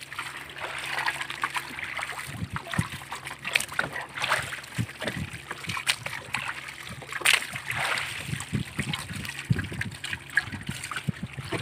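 Water splashing and sloshing in irregular bursts as a hand scoop net is dipped into the bait water in the bottom of a wooden canoe, scooping up live bait fish, with short knocks in between.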